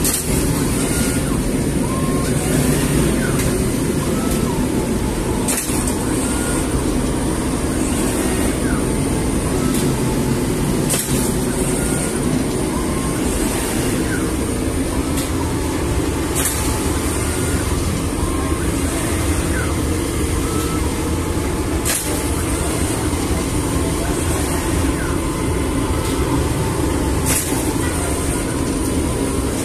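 Automated flatbread dough sheeting machine running: rollers and conveyors give a steady mechanical drone, with a sharp clack about every five and a half seconds.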